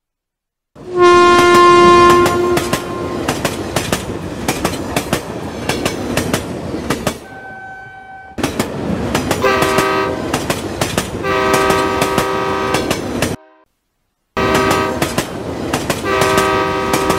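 Train horn blowing in repeated long blasts over a fast clatter of wheels on rail joints. It starts after a brief silence and cuts out abruptly for under a second about two-thirds of the way through.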